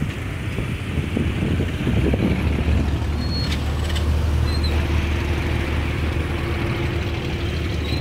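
Motorbike engines running and pulling away at close range, with a steady low engine drone that grows stronger about two and a half seconds in.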